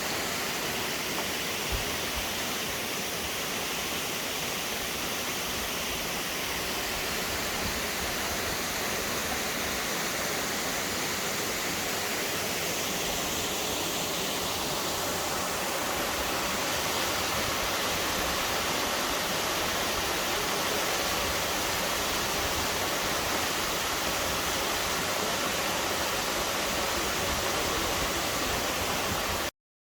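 Waterfall: a steady rush of falling water that cuts off abruptly near the end.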